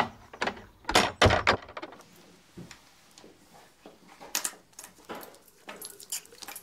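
Two heavy thuds about a second in, then faint scattered clinks and knocks.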